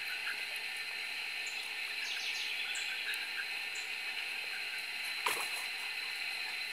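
Ducklings giving scattered short, faint peeps over a steady high hiss, with one sharp knock about five seconds in.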